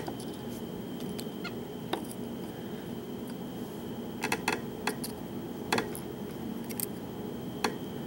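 Small, sharp metallic clicks of steel tweezers against a brass padlock core and its pins as the pin stacks are picked out, scattered irregularly with a cluster of several clicks about four to six seconds in.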